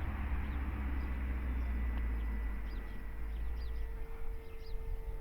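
Electric motor and propeller of an FMS Cessna 182 1.5 m RC airplane, running on a 4S pack, droning steadily in flight at a distance, with wind rumbling on the microphone. Faint short bird chirps come through in the second half.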